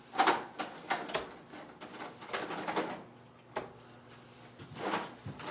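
Darts striking a dartboard: a few sharp thuds, the loudest just after the start, with short low vocal sounds in between.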